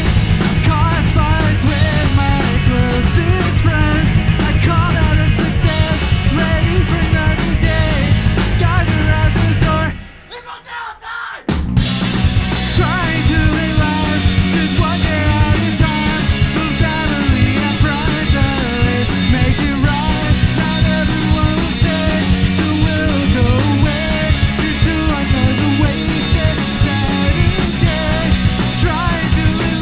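Rock band playing live: a man singing over electric guitar and drums. About ten seconds in the band stops dead for under two seconds, then comes back in at full level.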